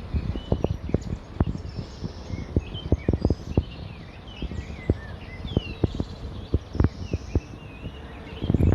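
Birds chirping in short rising and falling calls over many irregular sharp knocks and taps, which bunch up louder near the end.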